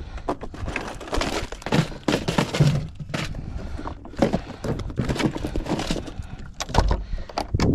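Fishing tackle being handled: irregular clicks, knocks and rustling as soft-plastic lures and a jig head are taken out and sorted.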